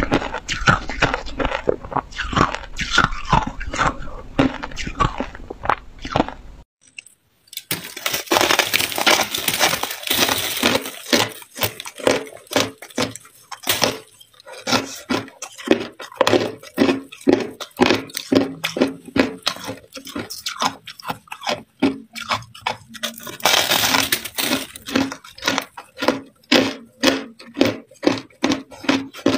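Hard ice being bitten and chewed: dense, rapid, irregular crunching and cracking, with a short break about seven seconds in.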